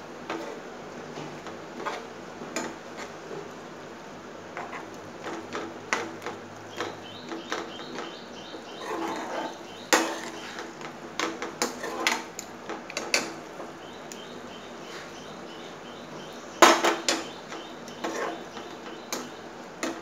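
A spatula stirring thick okra masala in a nonstick frying pan: irregular scrapes and knocks against the pan, the loudest about ten seconds in and again near seventeen seconds, over a low steady hiss.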